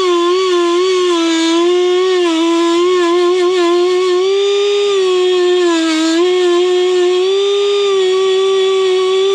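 Dremel rotary tool running with a steady high whine, its pitch dipping briefly several times as the round attachment is pressed onto a copper nail and rove to clean them up.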